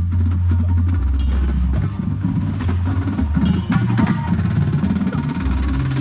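Drum and bugle corps playing its show, heard from within the marching horn line: brass and percussion together, with sustained low notes shifting about once a second under many sharp drum and wood-block-like strikes.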